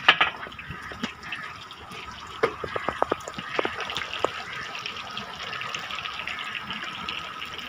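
Fish pieces deep-frying in a large iron karahi of hot oil: a steady sizzle, with a run of sharp crackles and pops about two to four seconds in.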